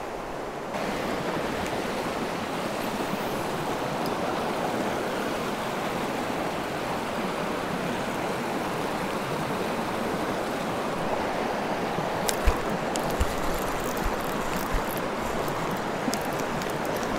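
Steady rush of stream water running over a rocky shoal, with a few short sharp knocks in the last third.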